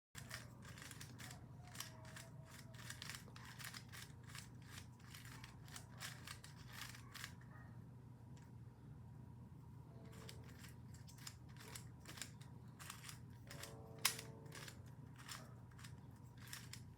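Rubik's Cube being twisted by hand: faint, quick clicking of the plastic layers turning, several clicks a second, with a pause of about two seconds midway and one sharper click near the end.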